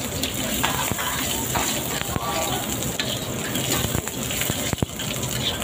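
Sliced aromatics and spring onion sizzling in hot oil in a wok, with a metal spatula clicking and scraping against the wok as they are stirred.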